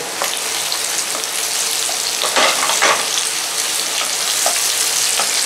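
Capsicum and paneer sizzling in hot oil in a non-stick pan as a wooden spatula stirs them, with two louder scrapes of the spatula near the middle.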